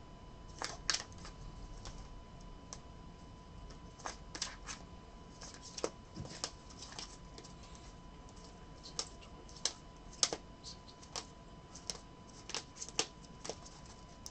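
Rigid plastic toploaders holding trading cards clicking and clacking against one another as a stack of them is handled and shuffled, in irregular sharp taps.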